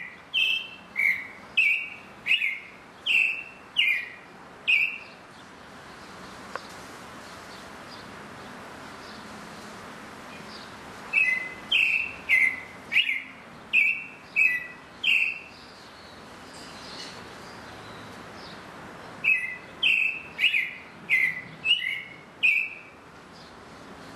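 Sabiá thrush singing: three bouts of about eight short, clear notes each, roughly two notes a second, with pauses of a few seconds between bouts.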